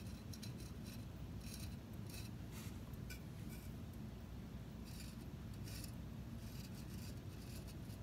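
Mayco Designer Liner squeeze bottle's fine tip scratching across an unglazed bisque mug as black underglaze lines are drawn: short, irregular scratchy strokes in small clusters, over a steady low hum.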